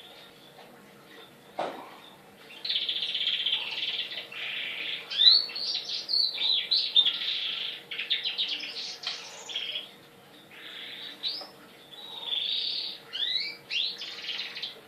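Domestic canary in full song, with long rolling trills and quick chirps and a short break about ten seconds in. A single knock comes just before the song starts.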